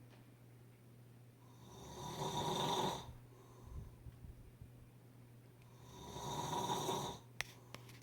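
Snoring: two long snores about four seconds apart, each swelling and then stopping short, over a faint steady low hum. A brief sharp click comes near the end.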